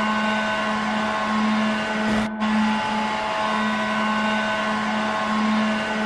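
Victoria Salmon Kings' 2009 arena goal horn blowing one steady low note. It breaks off briefly about two seconds in and sounds again: the closing blasts of a three-blast goal horn.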